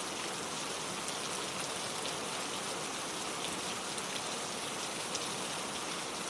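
Steady rainfall: an even hiss of rain with scattered sharper drops tapping on a surface.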